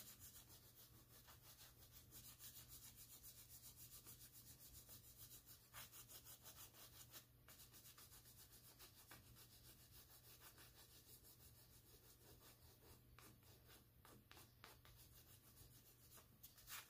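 Faint scratchy rubbing of a blue oil pastel stroked lightly side to side on black paper, in quick, regular strokes.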